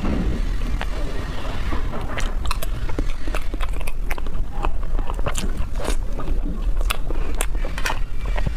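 Close-miked eating sounds: many sharp, irregular wet clicks and smacks of a mouth eating a soft chocolate mousse dessert, over a steady low hum.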